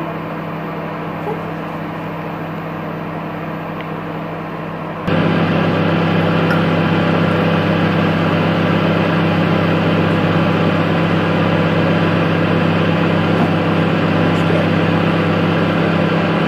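Microwave oven running on full power: a steady hum that grows louder about five seconds in.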